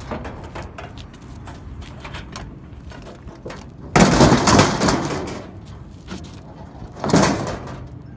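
A metal barbecue grill heaved into a pickup's cargo bed as scrap, landing with a loud metallic crash about four seconds in that rattles on for a second, then a second, shorter crash about three seconds later as it is shoved into place.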